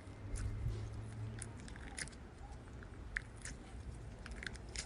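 Slime being squeezed and worked by hand, giving scattered small sticky clicks and crackles at an irregular pace.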